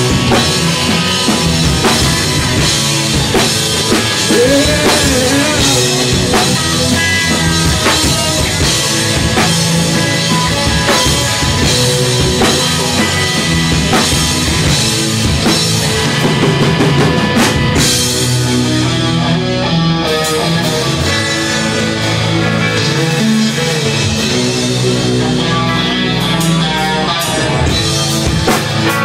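Live rock band playing: electric guitars, bass guitar and a drum kit. The high cymbal wash thins out for a few seconds past the middle.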